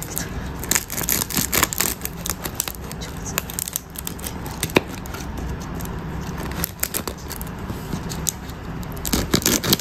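A knife sawing through the very crispy, flaky crust of a croissant bagel, giving a continuous run of crackling crunches as the laminated layers break.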